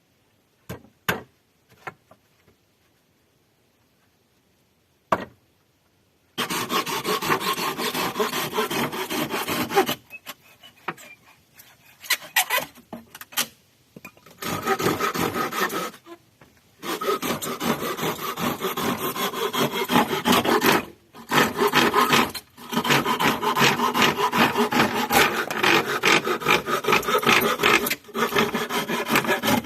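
A few light knocks, then rapid abrasive scraping on wood in long spells that stop and start several times.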